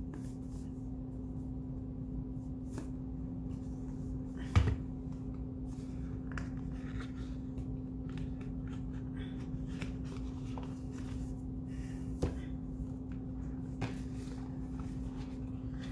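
A cardboard box of spirit animal oracle cards being opened and its guidebook and cards handled: scattered soft clicks and taps, with one sharper knock about four and a half seconds in. A steady low hum runs underneath.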